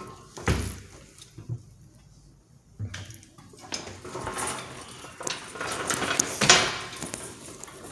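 Hard objects being handled: a thump about half a second in, then a run of knocks, clinks and rustling that grows busier, loudest about six and a half seconds in.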